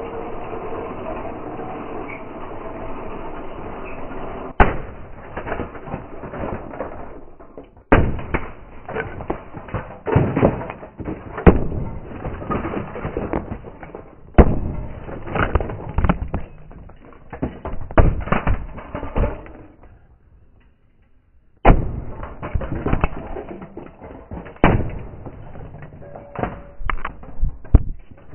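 Claw hammer repeatedly smashing cheap plastic knock-off toy trains and their track: sharp hard blows with clattering debris, in two bouts with a short lull about two-thirds of the way through. For the first few seconds a battery toy train's motor runs steadily before the first blow.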